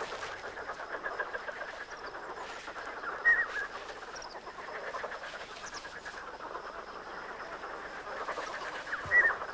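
Chorus of marsh frogs croaking, a dense rattle of many overlapping calls, with two short, louder chirps about three seconds in and again near the end.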